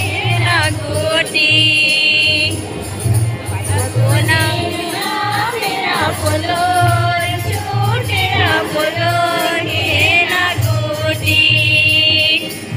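Congregation singing a hymn together over a steady drum beat with jingling percussion; a high note is held for about a second twice.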